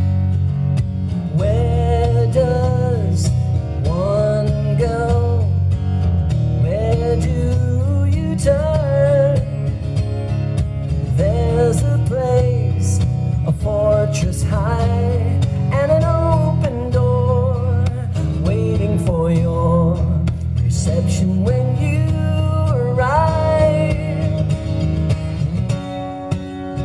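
Solo acoustic guitar strummed with a man singing over it in a live performance. The singing stops a couple of seconds before the end, leaving the guitar playing alone.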